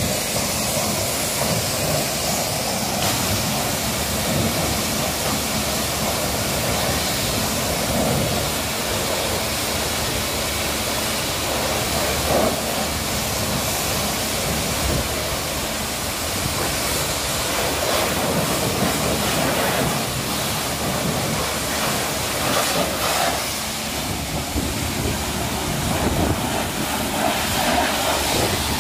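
Pressure washer spraying a high-pressure jet of water onto a car's bodywork, a loud steady hiss.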